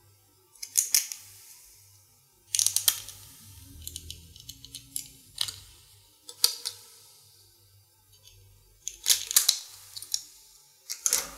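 Plastic casing of a USB pen drive being prised apart by hand: clusters of sharp clicks and snaps at irregular intervals, with quieter handling between.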